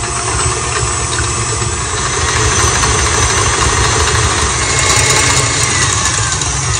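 KitchenAid Artisan stand mixer running steadily at speed: a constant motor hum under the whir of its wire whisk beating eggs and sugar in the stainless steel bowl.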